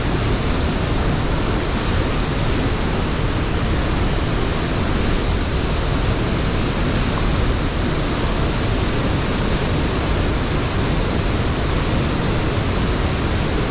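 Steady, loud rush of a waterfall pouring into a jungle creek pool.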